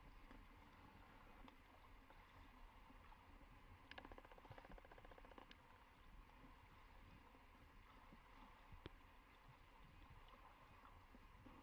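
Near silence: faint underwater hiss and low rumble picked up by a waterproof camera, with a short run of faint rapid clicking about four seconds in and a single faint click near the end.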